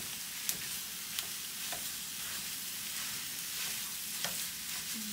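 Ground beef frying with onions, garlic and butter in a frying pan, sizzling steadily while a wooden spatula stirs it, with a few sharp taps of the spatula on the pan.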